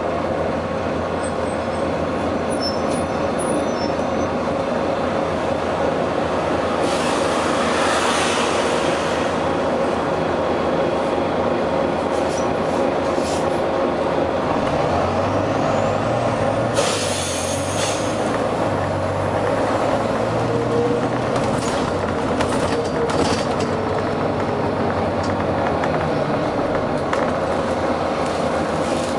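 Volvo B9TL double-decker bus's diesel engine running steadily, with two bursts of compressed-air hiss, about seven seconds in and again around seventeen seconds. The engine note grows heavier through the middle.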